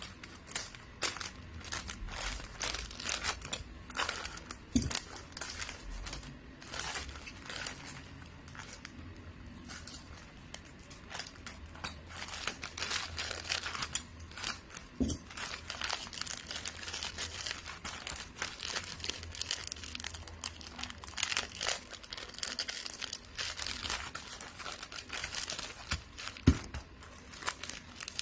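Gift-wrapping material crinkling and rustling as it is handled and folded by hand, with three low knocks on the table spread through it.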